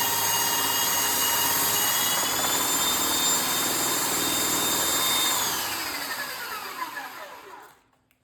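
Power-tool motor running steadily at full speed, its pitch stepping up slightly about two seconds in, then switched off and winding down over about two and a half seconds, the pitch falling until it stops.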